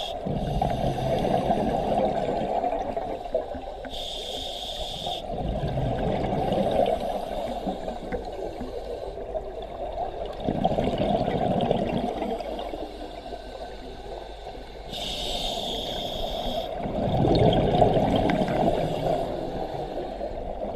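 Open-circuit scuba regulator breathing underwater. A short hissing inhale is followed by a long, rough gush of exhaust bubbles, repeating every five or six seconds.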